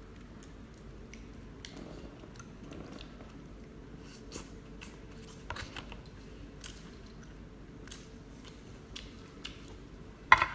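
Scattered crunches and sharp clicks of king crab shell being cut with scissors and picked apart, with a louder cluster of snaps near the end.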